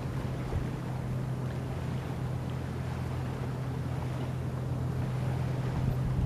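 A motor running steadily with a low, even hum, growing slightly louder near the end, over a light wash of wind noise.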